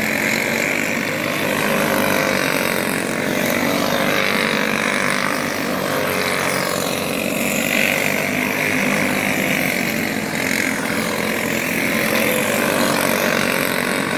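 Several racing karts' small single-cylinder clone engines running at racing speed, a steady buzzing drone whose pitch wavers up and down as the karts work through the turns.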